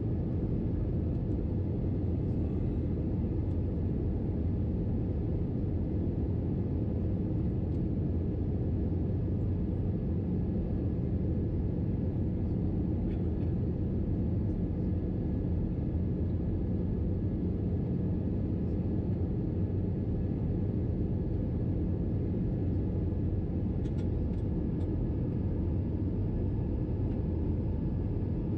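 Cabin noise of an Airbus A321-211 in cruise: a steady low drone of airflow and its CFM56 jet engines, with a faint even hum and no changes.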